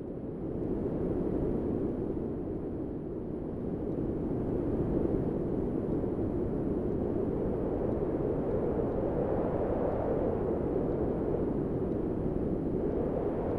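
Wind sound effect: a steady, low rush of wind that swells in over the first second, then rises and falls gently.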